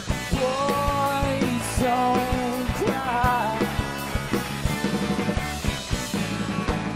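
Live rock band playing an instrumental passage on electric guitars, bass guitar and drum kit, with the drums keeping a steady beat under a held melodic line that bends in pitch several times.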